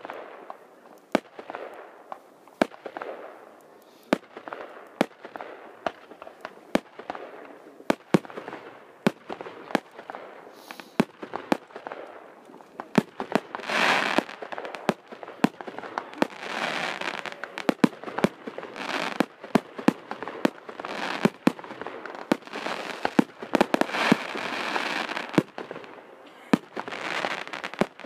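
Aerial fireworks display: a steady string of sharp bangs from shells bursting, about one or two a second, with stretches of crackling hiss between them that swell several times, most strongly about halfway through and again near the end.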